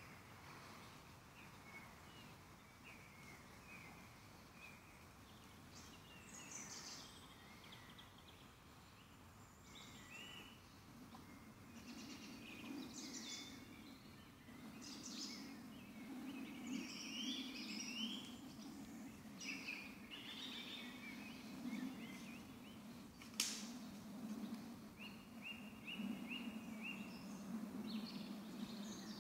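Woodland songbirds singing in short repeated notes and trills over a quiet forest background. A low rumbling sets in before halfway, and there is one sharp snap about two-thirds of the way through.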